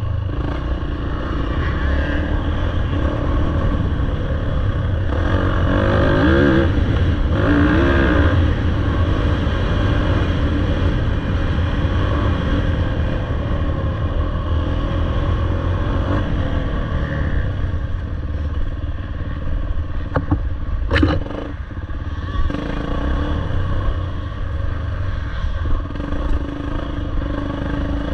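Dirt bike engine running under load on a harescramble trail, its revs rising and falling as the throttle is worked. A few sharp knocks come about three quarters of the way through.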